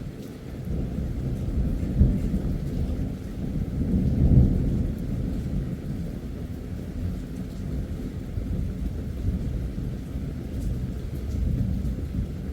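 A long roll of thunder: a deep rumble that swells to loud peaks about two and four seconds in, then keeps rolling more quietly.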